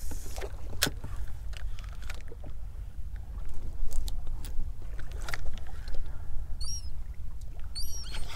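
Wind buffeting the microphone and small waves lapping at the boat's hull, with a few scattered sharp clicks. Short, high seabird calls come twice near the end.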